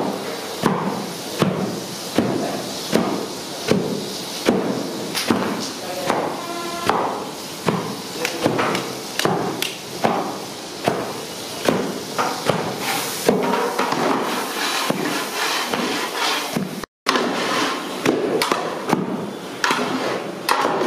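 Long metal slotted ladle knocking and scraping against a large metal kadhai while stirring grated pumpkin halwa, repeated sharp clacks roughly one or two a second.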